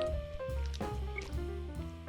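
Background music: a light instrumental track with melodic notes over bass and drums.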